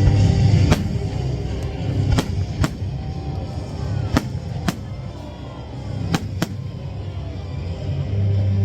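Fireworks bursting in about seven sharp bangs, several in quick pairs, over music.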